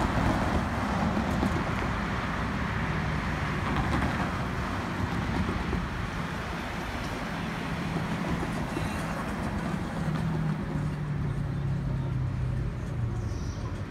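Road vehicles driving over the grade crossing, their tyres and engines fading after a few seconds. This gives way to the steady low drone of a distant diesel locomotive engine, which grows stronger in the second half.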